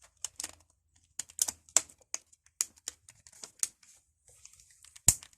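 Sharp, irregular plastic clicks and snaps as a Nokia 2730's front cover is pressed back onto the phone body, its clips seating; the loudest snap comes near the end.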